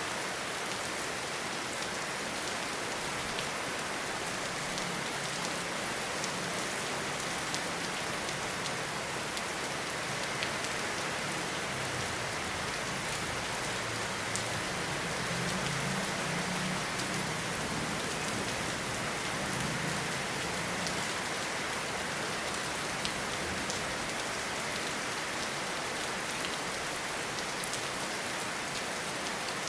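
Steady rain falling, an even hiss with individual drops tapping throughout. A low rumble swells for several seconds around the middle.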